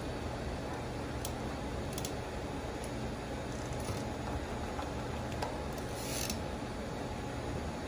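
Steady machine hum and hiss, with a few faint, sharp clicks over it.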